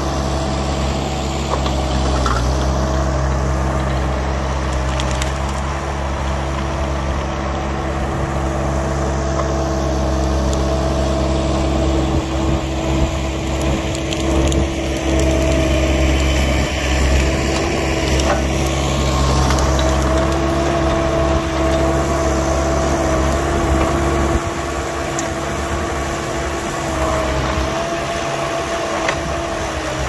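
Vermeer tracked mini skid steer's engine running steadily under load while its grapple pushes through brush and logs, with wood crushing and splintering. The engine's pitch wavers slightly and the overall level drops a little late on.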